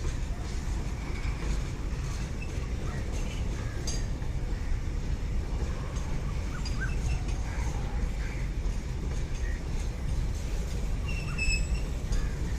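Trivandrum Mail passenger train running, a steady low rumble, with a few faint bird chirps over it near the end.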